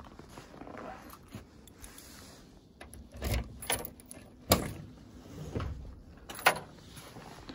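Boot lid of a VAZ-2107 being unlocked and opened: scattered lock and latch clicks and rattles, with the sharpest click a little past halfway and another near the end.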